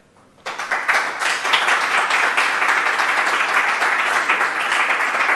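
Audience applauding: the clapping begins about half a second in, quickly fills out and holds steady.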